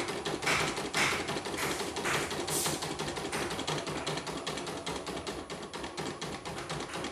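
Portable computerized embroidery machine stitching: a fast, even run of needle ticks, many a second, with a heavier swishing pulse about twice a second that fades out about two and a half seconds in.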